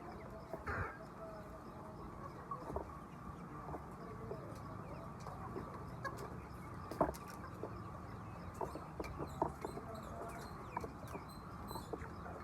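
A flock of laying hens clucking, with many short calls overlapping and scattered sharp clicks among them.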